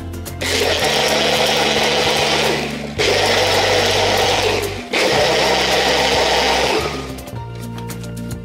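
Personal bullet-style blender motor running in three bursts of about two seconds each, blending a cup of liquid, with short breaks between bursts and a stop near the end. Background music with a steady beat plays underneath.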